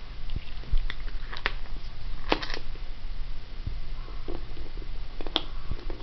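Budgie moving about on a wooden floor, making scattered light taps and clicks with its feet and beak, a few seconds apart, over a steady low hum.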